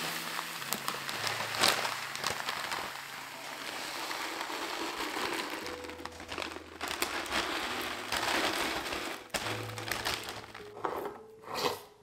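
Small dry grains pouring from a plastic bag into a glass jar: a steady rushing hiss with the bag crinkling. Near the end there are a few short knocks as the jar is handled and its metal lid is fitted.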